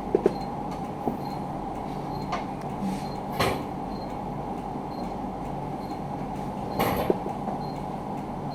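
A few scattered clicks and light knocks from parts of a total station's control unit being handled during disassembly, over steady low background noise.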